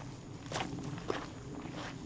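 Footsteps of a person walking at an even pace, about two steps a second.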